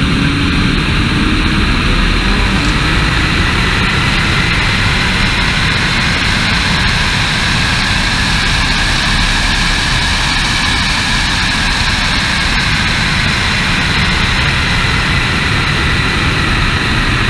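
Nissan GT-R at full throttle through a high-speed roll race, engine noise buried under heavy wind rushing over an outside-mounted camera. A faint whine climbs slowly in pitch through the middle of the run.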